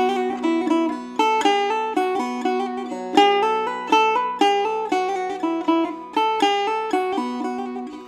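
Background music: an instrumental passage on a plucked string instrument, quick runs of notes over a steady low drone.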